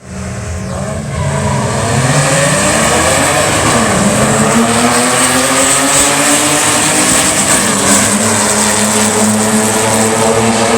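Race car engines at full throttle on a circuit. One engine note falls as a car goes by about four seconds in, then engine notes climb and hold high as cars accelerate away.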